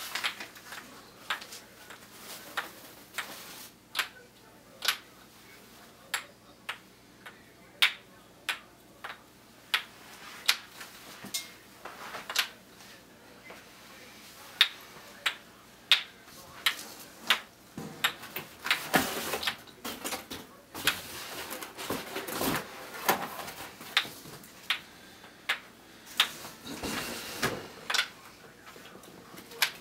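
Wooden kendama clacking as the ball is caught on the cups and spike: a run of sharp clicks, about one or two a second. In the second half, rustling from something being taken out of a box runs underneath.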